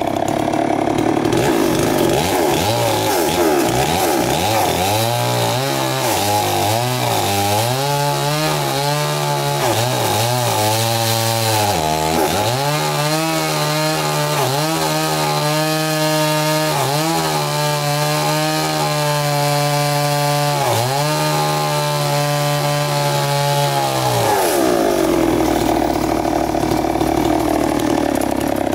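Two-stroke chainsaw cutting into a big tree trunk. It runs at high revs at first and again near the end. In between, its pitch sinks lower and wavers, dipping sharply a few times as the chain bites into the wood.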